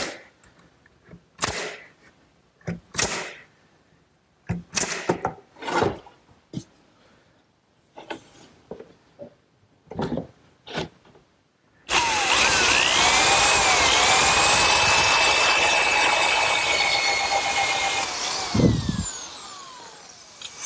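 Pneumatic nail gun firing a string of sharp shots, about ten, at irregular intervals while the cupboard is nailed together. About twelve seconds in, an electric drill starts, its motor pitch rising and then holding steady for about six seconds before it winds down, with a low thump near the end.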